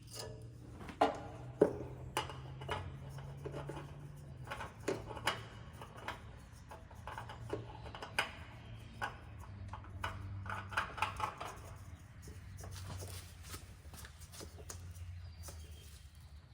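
Irregular metal clinks and knocks, like tools and parts being handled, over a low steady hum. The sharpest knocks come about a second and a second and a half in.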